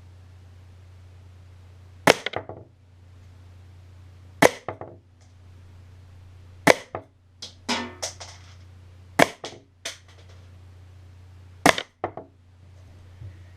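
Baikal MP-651K CO2 air pistol fired five times, about two and a half seconds apart, each a sharp crack followed by a short rattle as the .177 pellet hits a 3.5-inch desktop hard disk.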